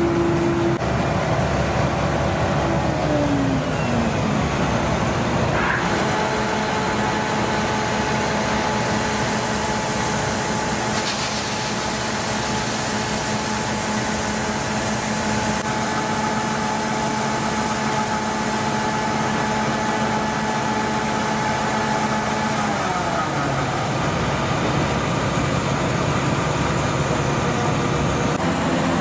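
Claas Lexion 670 combine harvester running with a steady mechanical whine. Its pitch drops twice, a few seconds in and again near the end, and the sound changes abruptly about six seconds in.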